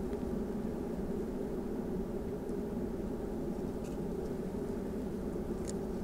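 Steady low drone of a distant engine running at an even speed, with a couple of faint high clicks late on.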